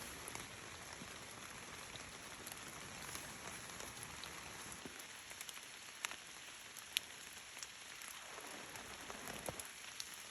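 Steady rain falling, with single drops ticking sharply now and then.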